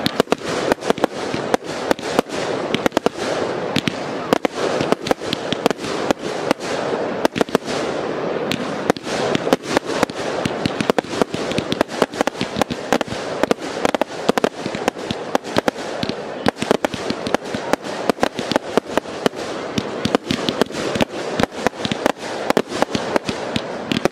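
Aerial fireworks going off in a dense barrage: sharp bangs several times a second, without a pause, over a continuous noisy wash of bursting effects.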